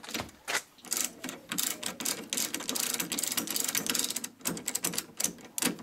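Ratchet spanner clicking in quick runs as it tightens a bolt on the go-kart's steering joint, with a short pause a little past the middle.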